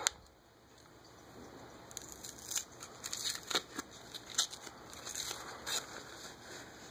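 Paper towel rustling and crinkling as it is unwrapped by hand, with a few sharper crackles; it starts about two seconds in after a near-quiet moment.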